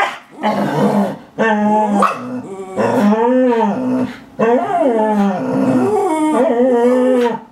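Dogs whining, long wavering high-pitched cries that overlap, with short breaks between them. It is the dogs' excited whining at an opossum.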